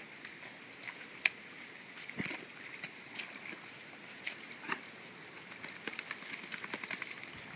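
Flat-coated retriever splashing and sloshing in a shallow muddy puddle, with scattered short splashes and clicks. A single sharp click a little over a second in is the loudest sound.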